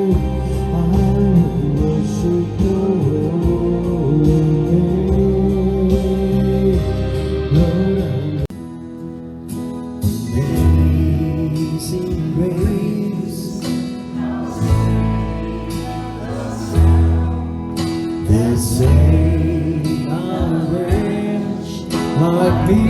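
A song with a singing voice over instruments. About eight and a half seconds in the music drops quieter and changes, then builds again.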